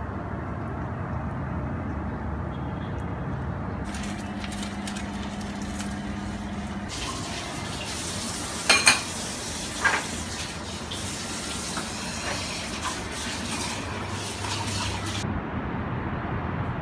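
Kitchen tap running into a sink during dishwashing, with a few sharp clinks of crockery around nine and ten seconds in. The water stops about fifteen seconds in. Before it there is a low steady background noise with a hum.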